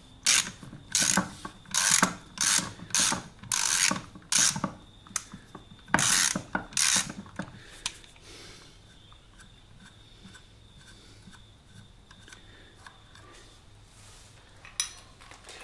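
Socket ratchet clicking in about ten short bursts over the first seven seconds, undoing the nylon lock nuts that hold the rear sprocket to a motorcycle wheel hub. A single sharp click near the end.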